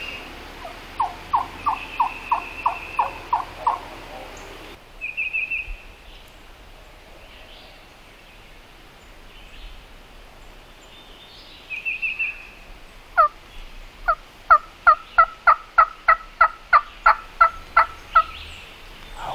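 Turkey yelping: two runs of evenly spaced, two-toned yelps at about three a second, a short run in the first few seconds and a longer one in the last five seconds. A few short high trills fall between the runs.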